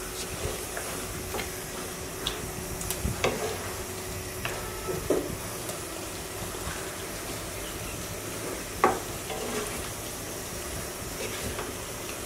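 Chicken pieces in a spiced yogurt masala sizzling as they fry in a non-stick pan, stirred with a wooden spatula: a steady sizzle with scattered scrapes and knocks of the spatula against the pan, the loudest knock about nine seconds in.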